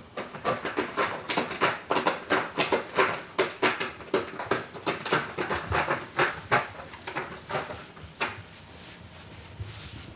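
A cat close to the microphone making quick, rhythmic rasping strokes, about four or five a second, which thin out and stop about eight seconds in.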